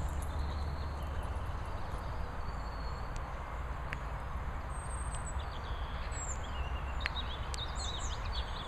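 Steady outdoor background noise with a low rumble, and a few faint high chirps in the second half.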